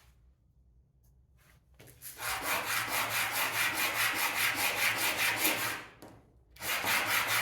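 Wood being sanded: a steady rasping with a quick, even pulse that starts about two seconds in, breaks off briefly near the end, then resumes.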